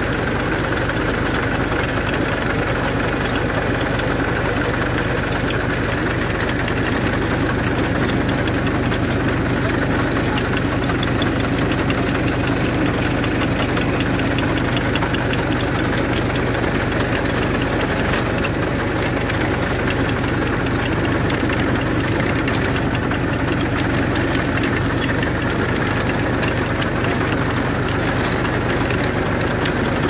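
Tractor engine running steadily while it pulls a potato digger, with the digger's rod-chain elevator rattling continuously as it sifts soil and potatoes.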